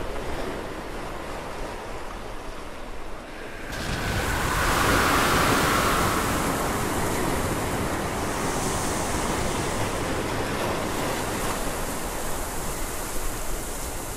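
Ocean surf washing on the shore: a steady rush of waves that swells louder about four seconds in.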